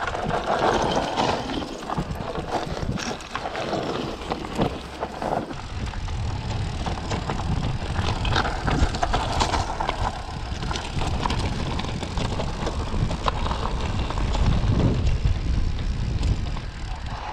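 Fantic Integra 180 e-mountain bike riding down a loose rocky trail: tyres crunching over stones, with many sharp knocks and rattles from the bike and its handlebar bag. From about five seconds in, wind rumbles on the handlebar camera's microphone under the clatter.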